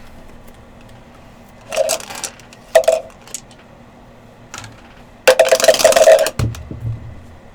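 Dice rolled and clattering on a hard surface: two short rattles, then a louder rattle lasting about a second near the end.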